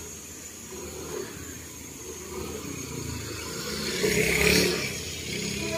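A small motor scooter passing close by: its engine grows louder as it approaches, is loudest about four and a half seconds in, then fades.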